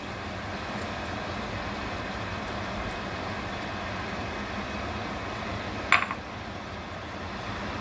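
Chicken stock poured from a small glass bowl into a stainless steel sauté pan of simmering wine, over a steady hiss. A single sharp clink of the glass bowl comes about six seconds in.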